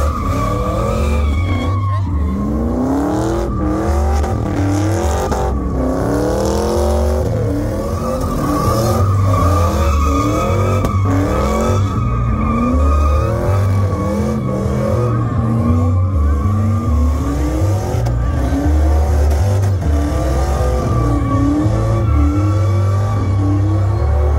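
Pickup truck doing a burnout and donuts, its engine revving up over and over about once a second under a heavy low rumble. A steady high tyre squeal runs throughout as the rear tyres spin and smoke on the asphalt.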